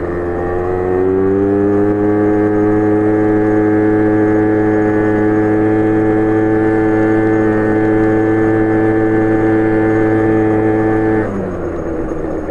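Small four-wheeler (ATV) engine running under way: its pitch rises about a second in as it speeds up, holds steady while cruising, then drops near the end as the throttle eases off.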